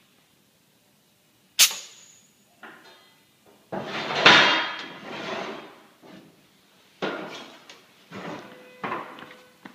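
Ultrasonic plastic tube sealing machine at work: a sharp click, then a run of clunks and short noisy bursts, the loudest a long one about four seconds in.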